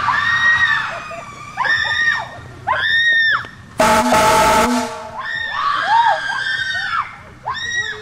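Repeated short screams, broken about four seconds in by one blast of an air horn lasting just under a second, then more screams.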